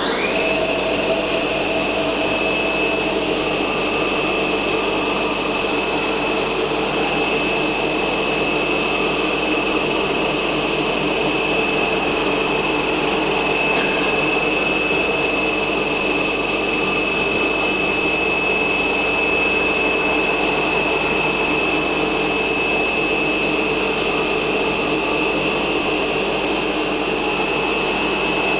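Wintec MV-40 vertical machining centre spindle running at 3000 RPM: it comes up to speed with a brief rising whine at the start, then holds a steady high whine of several tones over the machine's running noise.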